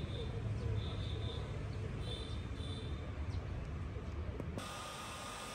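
Outdoor ambience with a low rumble and faint high chirping that comes and goes. About four and a half seconds in it cuts suddenly to a steady hiss with a faint thin whine.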